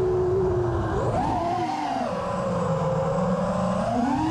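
Five-inch FPV racing quadcopter's brushless motors and three-blade props (RCinPower Smoox 2306.5 2580kv on Gemfan 5.1-inch props) whining in flight. The pitch holds steady, rises sharply about a second in as the motors spin up, eases down, then climbs again near the end.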